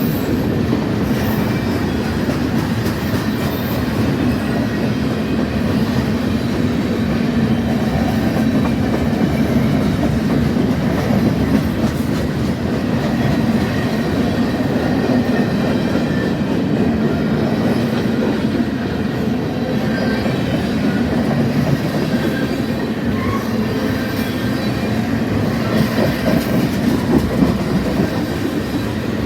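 Freight train cars rolling steadily past, a continuous rumble and clatter of steel wheels on the rails.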